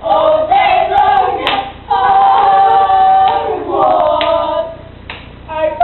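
Several girls' voices singing a cappella in unison, with a long held note in the middle of the phrase.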